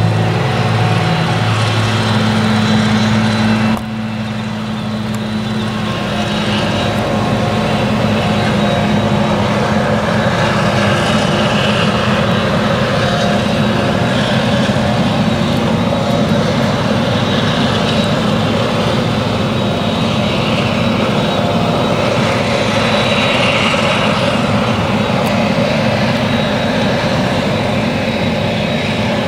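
Claas Jaguar 970 self-propelled forage harvester running under load while chopping triticale for whole-crop silage: a loud, steady engine drone. About four seconds in, the level dips and the sound turns into a denser, noisier drone, with a tractor and silage trailer running alongside.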